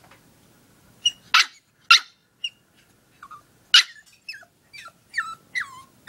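Small long-haired dog giving three sharp yaps, then a string of short, high whimpers that each slide down in pitch.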